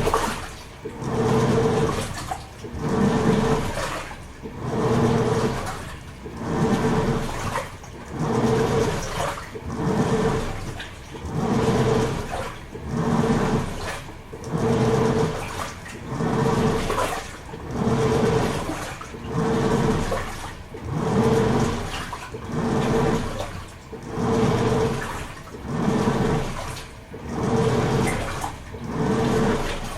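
Toshiba AW-42SEE4(S) fully automatic top-load washing machine agitating its load. The pulsator motor hums as it swings the water and laundry one way and then the other, in even surges of swishing water about every two seconds.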